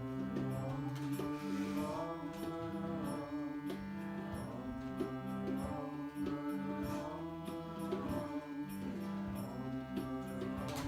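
Devotional chant-style music: sustained drone-like notes that change about once a second, with light, steady percussion.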